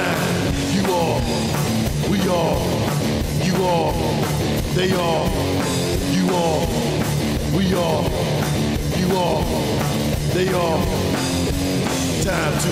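Loud rock music from electric guitars and a drum kit, an instrumental passage without singing.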